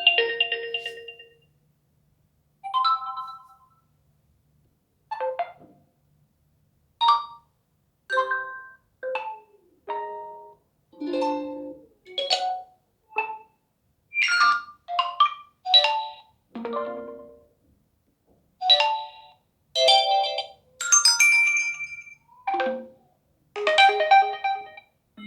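Realme GT5 Pro phone ringtones playing: the tail of one tone fades out in the first second or so, and after a brief gap a melody of short, separate chiming notes starts up, each note dying away quickly.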